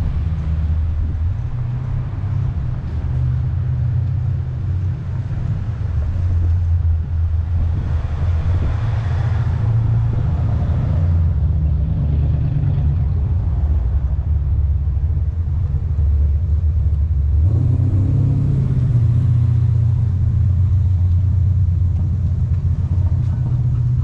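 Wind buffeting the microphone: a loud, steady low rumble, with broader swells of noise about eight seconds in and again near eighteen seconds.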